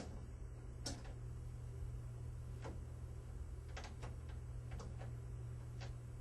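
Faint, irregular metallic clicks of adjustable pliers working the hex nut on a faucet cartridge, about eight in all, over a low steady hum.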